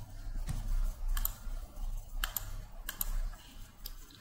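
Typing on a computer keyboard and clicking a mouse: sharp, irregular clicks, several in close pairs, a few every second.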